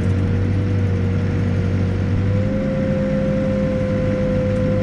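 Backhoe's diesel engine running steadily, with a steady whine over the low hum; about halfway through, the whine and the engine note step up slightly in pitch.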